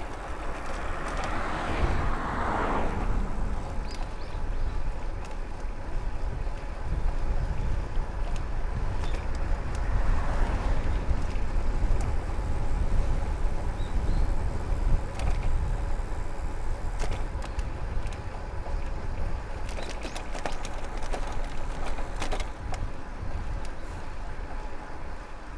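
Wind rumbling on the microphone and road bike tyres running over rough pavement, with scattered clicks and rattles from bumps. A car swells past about two seconds in, and a fainter vehicle passes around ten seconds.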